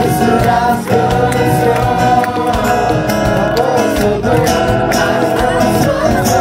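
A small group of voices singing a song together, accompanied by a strummed Ibanez steel-string acoustic guitar.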